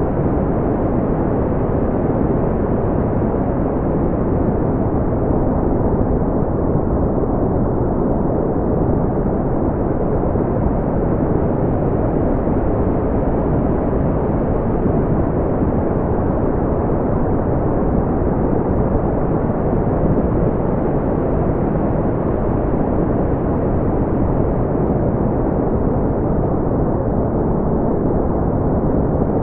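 Brown noise: a steady, deep rumbling hiss with most of its weight in the low end and almost nothing above the upper mids, unchanging throughout.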